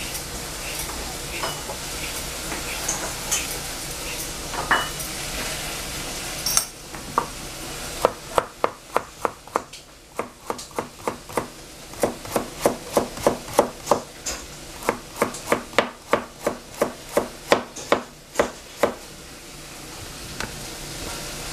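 Food sizzling in a pan for the first several seconds, stopping abruptly. Then a chef's knife slicing a carrot on a plastic cutting board: a long run of sharp knocks, about three a second.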